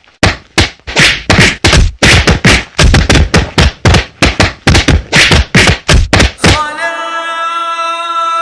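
A rapid run of heavy thuds, about three a second, which stops about six and a half seconds in as a held musical chord comes in.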